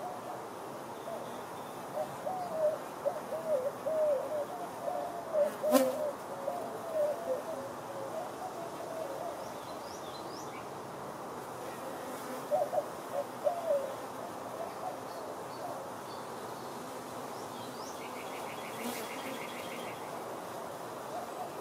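Honeybees buzzing as they fly past close to the microphone, a wavering hum that swells and fades in several passes, mostly between about two and eight seconds in and again around thirteen seconds. A single sharp click about six seconds in, and a few faint high chirps and a brief high trill later.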